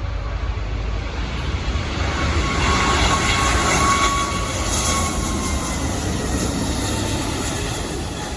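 Jet airliner passing close by. Its engine noise swells to a peak about three to five seconds in and then eases off, with a thin steady whine over a low rumble.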